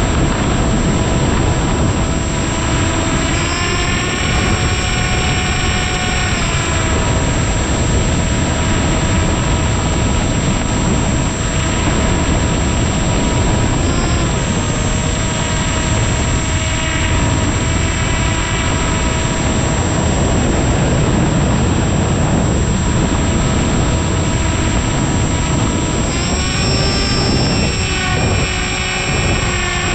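Electric motor and propeller of an Aeroscout RC airplane, heard from an onboard camera in flight: a steady whine over heavy rushing air noise. The pitch rises a few seconds in as the throttle opens and drops back a few seconds later, then rises and falls again near the end.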